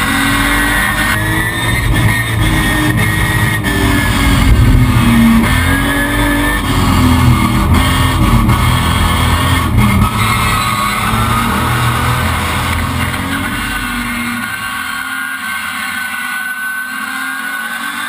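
Rallycross car's engine heard from onboard, its note rising and falling as it is driven hard through corners. Near the end the engine eases off and grows quieter.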